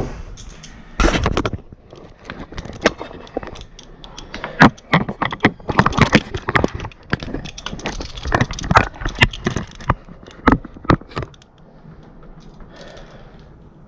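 Handling noise from work on the pump's drain line: a run of irregular clicks, knocks and scrapes from about a second in, settling down near the end.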